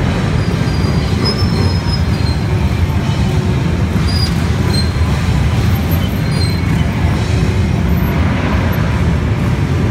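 Several Harley-Davidson Road King police motorcycles with V-twin engines rumbling at low speed as they roll past and pull up together.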